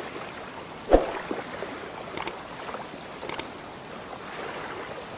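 Steady rushing, water-like noise under the intro card, with one sharp thump about a second in and two quick double clicks, the mouse-click sounds of a subscribe-button animation.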